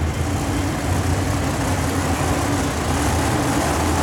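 Monster truck engine running steadily without revving, a low drone over the noise of the arena.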